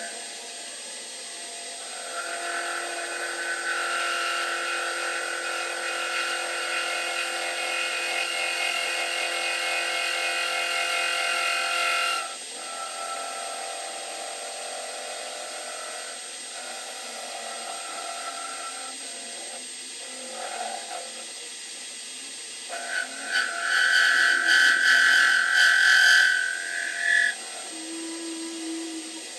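A power tool motor running with a steady whine that strengthens a couple of seconds in and drops back about twelve seconds in. Near the end, a louder, harsher stretch of a few seconds follows.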